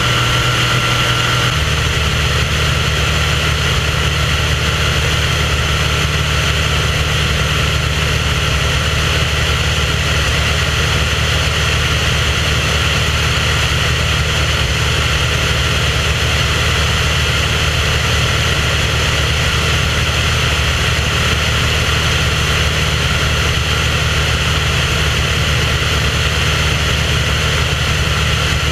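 Aircraft propeller engine running steadily in flight, a constant drone with rushing air noise. The tone shifts slightly about a second and a half in.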